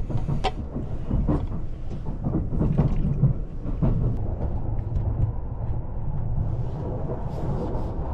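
Train in motion: a steady low rumble, with irregular clatter over the first few seconds.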